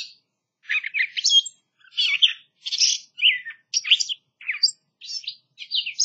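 Gray catbird song played back from a phone: a run of about ten short, varied phrases, discordant and nasal, each one different and none repeated, with brief gaps between them.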